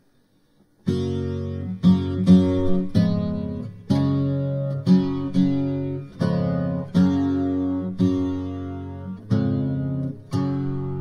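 Music: a strummed guitar playing chords, starting about a second in, each strum ringing and fading before the next.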